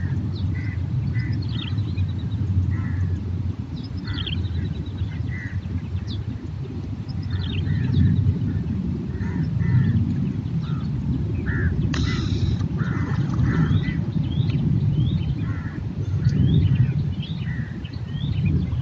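Many short bird calls and chirps over a loud, uneven low rumble. About twelve seconds in there is one brief, sharp noisy burst.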